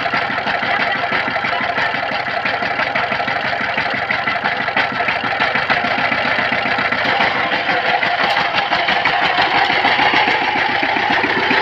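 Power tiller's single-cylinder diesel engine running with a steady, rapid knocking beat. It gets a little louder in the second half as it puffs exhaust smoke.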